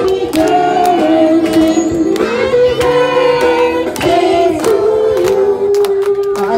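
Music with singing, and children clapping along in scattered claps.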